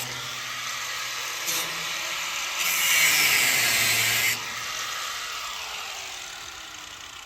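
Angle grinder cutting, loudest for a couple of seconds in the middle, then spinning down with a falling whine as the level sinks.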